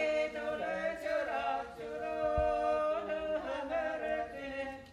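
Unaccompanied Estonian folk song in several voices, a man and a woman singing in harmony on long held notes; the singing stops near the end.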